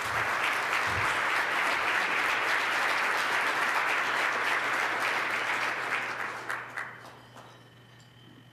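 A conference audience applauding, a steady dense clapping that fades out about seven seconds in.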